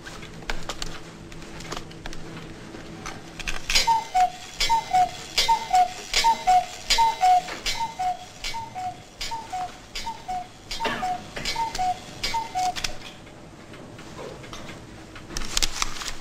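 A clock ticking in a steady tick-tock. Each beat is a higher click followed by a lower one, about one and a half pairs a second. The ticking grows loud about four seconds in and fades after about thirteen seconds, with a short cluster of sharp clicks near the end.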